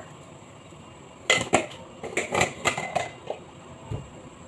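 A glass condiment jar and its plastic lid being handled and set down: a run of light clicks and knocks about a second in, then a dull low thump near the end.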